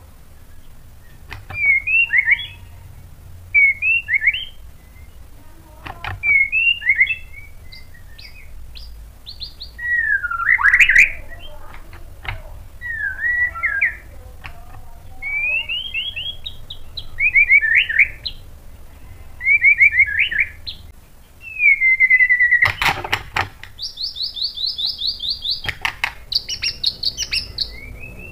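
A white-rumped shama (murai batu) sings a string of short, varied whistled phrases, one about every two seconds. Late on there is a sharp knock, and then the bird breaks into a long run of fast, high repeated notes.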